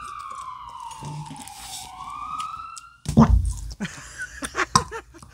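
A slide-whistle sound effect that glides slowly down in pitch and back up, building suspense, then a sudden loud low fart sound effect about three seconds in. Children's giggling follows.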